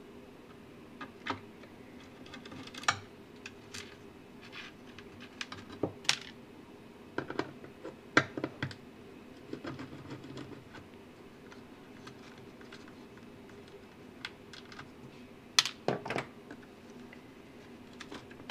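Irregular light clicks and taps of hands and a screwdriver working on the metal chassis and parts of a battery charger during disassembly, with a sharper cluster of clicks near the end.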